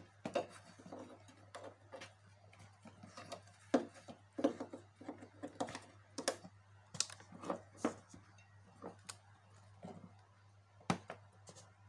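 Irregular plastic clicks and knocks of speaker cables and Speakon connectors being handled and plugged into the rear terminals of a power amplifier.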